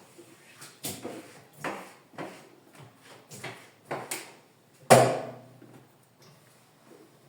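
Kitchen clatter from cleaning: a series of knocks and clacks of things being handled and set down, with a loud knock with a short ring about five seconds in, then quieter.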